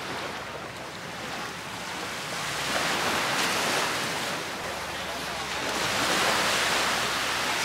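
Small waves breaking and washing up a sandy beach, the surf swelling about three seconds in and again near the end, with some wind on the microphone.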